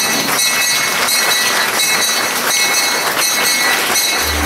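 Congregation applauding, with bells ringing steadily high above the clapping, in response to the announcement that the manna has formed. Near the end, sustained low organ-like tones start up.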